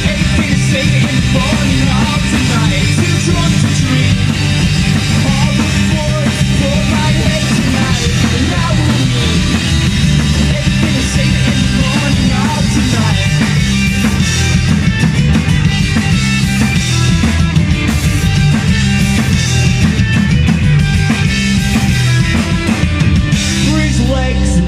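Live punk rock band playing a song: a man singing over strummed acoustic guitar, electric guitar, bass and a drum kit, loud and steady throughout.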